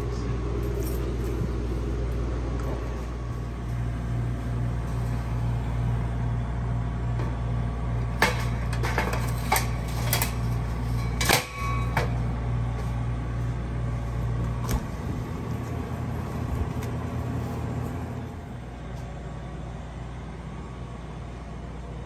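Steady low electrical hum of commercial refrigeration machinery running, with a few sharp clicks and knocks about eight to twelve seconds in; the hum drops away about fifteen seconds in.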